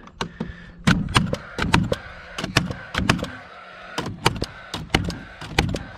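Cordless gas-powered framing nailer firing framing nails into lumber, a rapid run of about eighteen sharp shots in quick bursts of two to four.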